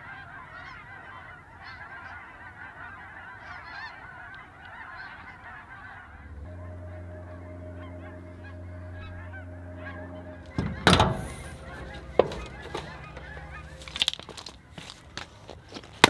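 A flock of geese flying over, honking continuously, for the first six seconds or so. A steady low hum follows, and from about eleven seconds an axe strikes and splits firewood rounds, with several sharp blows, the loudest near eleven and twelve seconds.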